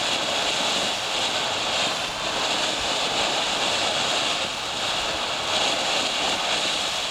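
Ground fountain firework spraying sparks with a steady, loud hiss.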